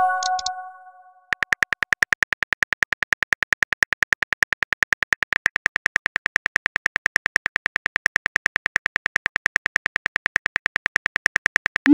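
Phone keyboard typing sound effect: a fast, perfectly even run of short key clicks, about eight a second, starting about a second in. Before the clicks, a short chime of a few notes rings out, the tone for an incoming text message.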